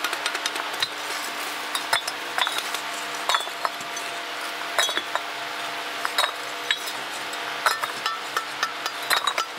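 Irregular light clinks and taps of hard objects striking one another, over a steady hiss.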